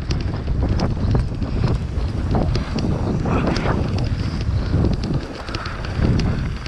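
Wind buffeting the microphone of a mountain bike riding fast down a dirt trail, with tyres on the dirt and sharp rattling clicks and knocks from the bike over the bumps.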